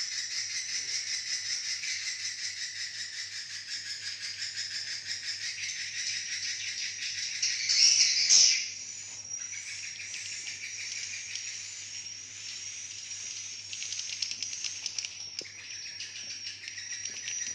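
Swiftlets giving their roosting calls: a dense, rapid chattering twitter, with a louder burst about eight seconds in.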